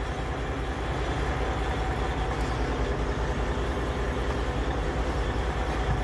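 Heavy diesel truck engine idling steadily, with an even, low pulsing beat.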